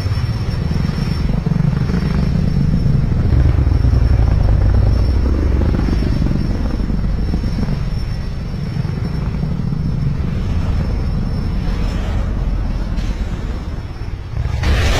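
Steady, loud low engine-like rumble with a faint high steady whine over it. Near the end a louder rushing burst begins.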